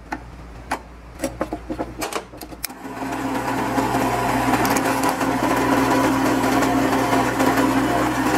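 A few metallic clicks and taps as the bit is set in the drill chuck, then about three seconds in a drill press motor starts and runs steadily while a number 7 bit drills a tap hole for a 1/4-20 thread in a stainless steel bracket.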